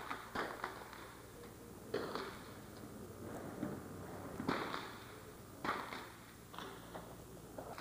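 Sharp cracks of .22 rimfire target rifles firing on a 50 m prone range: about half a dozen single shots from several firing points at uneven intervals, each followed by a short echo.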